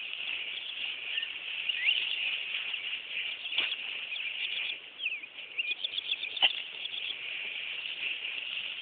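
Small birds chirping and twittering over a steady high hiss, with two brief knocks, one about a third of the way in and one about three quarters of the way in.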